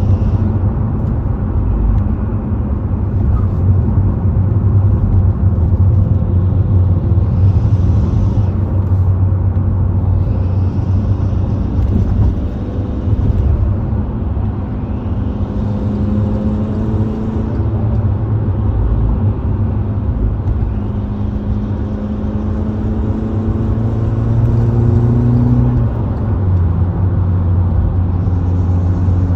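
Mk6 VW Golf R's turbocharged four-cylinder engine running, its pitch rising on several pulls of the accelerator. A hissing swoosh comes and goes with each press of the pedal, which the owner says is not turbo spool and cannot place.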